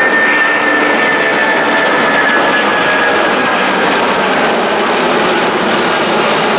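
A British Airways Boeing 747-400's four Rolls-Royce RB211 turbofans at climb power just after takeoff, passing low overhead. The sound is a loud, steady jet roar with a high whine that slowly falls in pitch.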